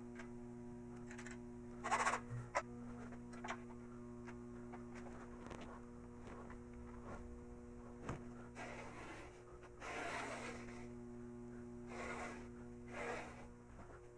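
Metal shop tools being handled on a steel rail: a sharp click about two seconds in, a few lighter knocks, then rustling and shuffling near the end, over a steady electrical hum.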